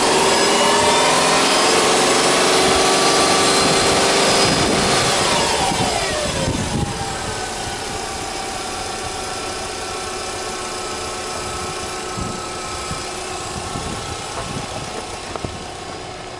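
Subaru Legacy 2.0GT spec B's turbocharged EJ20 flat-four engine being revved in neutral: held at high revs, rising slightly, for about four and a half seconds, then falling back over a couple of seconds to a steady idle.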